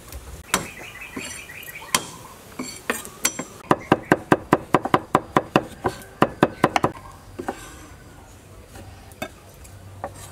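Kitchen knife chopping garlic on a wooden cutting board: a few scattered knocks, then a quick run of about six chops a second for some three seconds, then a few more strokes.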